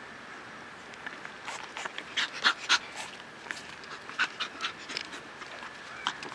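Shih Tzu puppy making a run of short, high, squeaky sounds, loudest about two to three seconds in.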